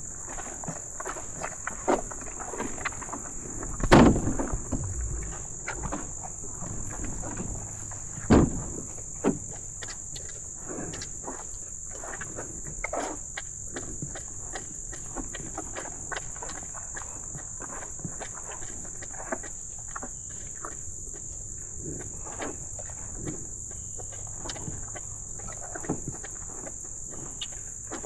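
A steady high trill of crickets runs throughout, under irregular soft knocks and scuffs. Two louder thumps come about four and eight seconds in.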